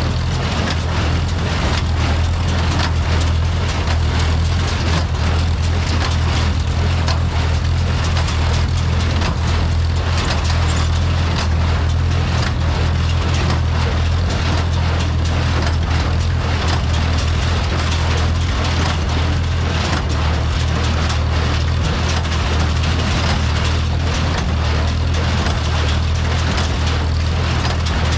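Farmall M tractor's four-cylinder engine running steadily under load, with the New Holland Hayliner 269 square baler clattering and knocking behind it as it picks up and packs hay.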